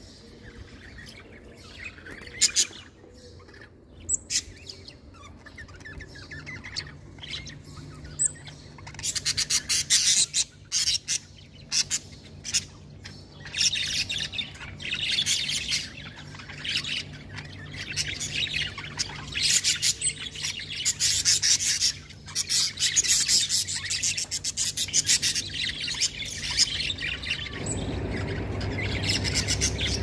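A flock of caged budgerigars chirping and chattering, sparse at first and busy and almost continuous after about nine seconds. A low steady hum runs underneath, and a louder low rumble comes in near the end.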